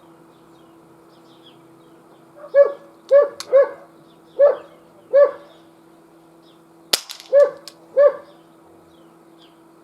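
A dog barking in short, high yaps, about seven of them in small groups. Between them come two sharp cracks from the Umarex Glock 22 CO2 BB pistol firing, a faint one about three seconds in and a sharper one about seven seconds in.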